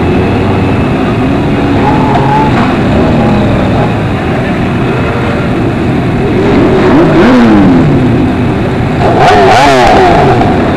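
A pack of motorcycle engines running close together at walking pace, with riders blipping their throttles so the pitch rises and falls; the revving gets louder and quicker in short up-and-down swings near the end.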